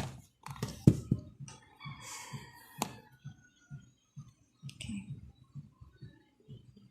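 Small plastic clicks and taps from handling a wearable air-purifier necklace and its packaging, with a few sharper clicks near the start, about a second in and near three seconds, and a brief rustle in between.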